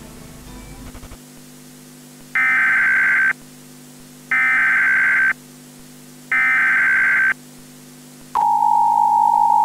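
Emergency Alert System broadcast tones: three one-second bursts of buzzy digital data tones about a second apart (the SAME header), then the steady two-tone attention signal starting near the end. A low hum runs underneath.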